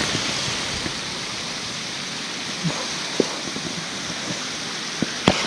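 A steady rushing hiss, with a few short knocks of footsteps on rock: about one knock a couple of seconds in, then two close together near the end.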